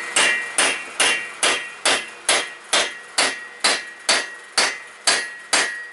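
Hammer tapping a valve-guide driver tool, driving a valve guide in a VW air-cooled cylinder head: a steady run of strikes, a little over two a second, each with a short metallic ring.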